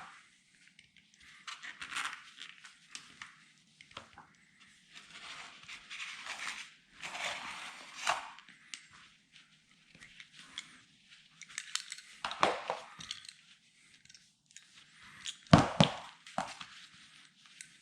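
Utility knife blade slicing through the old rubber windscreen seal of a VW T2 bus, in irregular scraping, rasping cutting strokes. A few sharp knocks come in the second half, the loudest about three-quarters of the way through.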